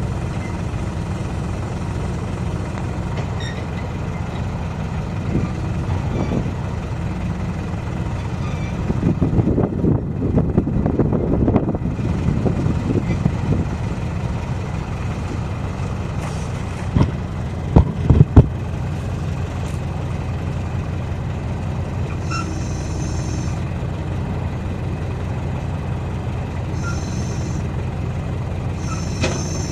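A heavy diesel engine running steadily at idle. About ten seconds in there is a stretch of louder clattering, and a few seconds later three sharp knocks in quick succession.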